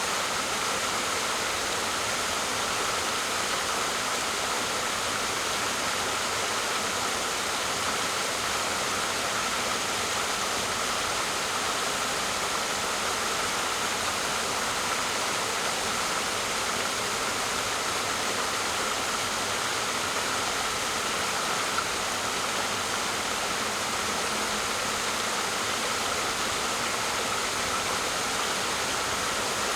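Waterfall rushing steadily, an even unbroken hiss of falling water.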